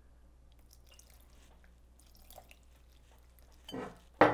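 Water poured faintly from a glass measuring cup into a bowl of flour and cornstarch. Near the end a wire whisk starts working the batter, with a sudden loud knock against the ceramic bowl.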